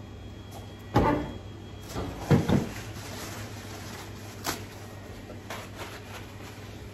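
Handling knocks and paper rustle at a steel prep counter while a whole salmon is wiped down with a paper towel: a thump about a second in, a quick double knock a little after two seconds, and a lighter knock in the middle. A steady low hum runs underneath.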